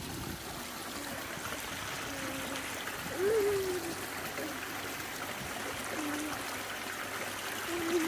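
Garden waterfall and stream water running and trickling steadily, with a few short wavering voice sounds over it, the loudest about three seconds in.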